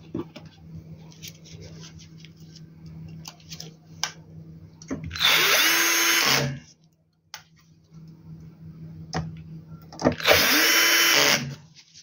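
Electric power screwdriver driving screws in two runs of a little over a second each, about five and ten seconds in, the motor's pitch falling away as each run stops. Between the runs there are light clicks of handling over a steady low hum.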